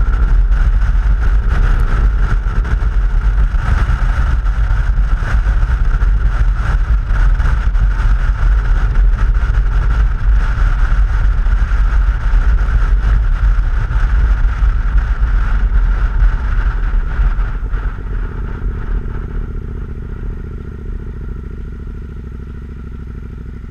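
Wind rumble on a helmet-mounted camera's microphone over a KTM 990 SMT's V-twin engine at cruising speed. The sound gets quieter over the last few seconds as the bike slows.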